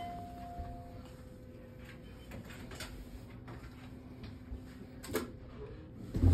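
Hotel elevator landing while waiting for the car: a steady low hum, a clear tone fading out in the first second, and a single sharp clunk about five seconds in.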